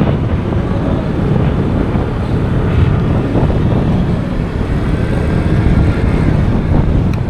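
Steady wind rush on the microphone and road noise while riding a motor scooter.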